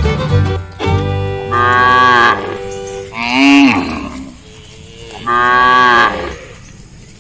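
Cow mooing: three long calls, the second shorter and falling in pitch, after a moment of background music at the start.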